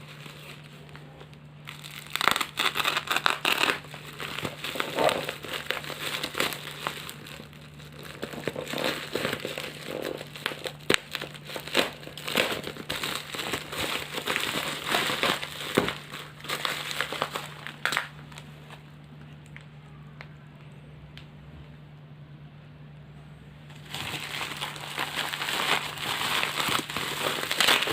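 Packaging of a delivery parcel being unwrapped by hand: irregular crinkling, crackling and rustling with occasional sharper clicks. It eases off for a few seconds past the middle and picks up again near the end, over a faint steady low hum.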